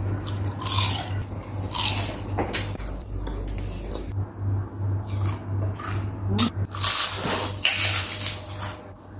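Cutlery clinking and scraping against plates during a meal, in many short clinks over a low steady hum.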